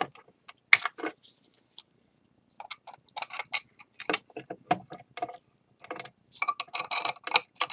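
Broken pieces of a ceramic bowl clicking and clinking against each other and a hard surface as they are handled: two flurries of sharp light clicks.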